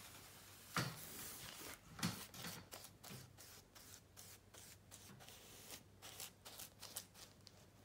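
Paintbrush bristles stroking paint along a wall edge in short, irregular scratchy strokes. There are two louder knocks about one and two seconds in.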